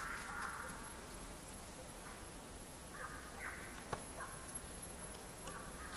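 Faint outdoor ambience with a few short, high animal calls about three seconds in and again near the end, and a sharp click just before four seconds.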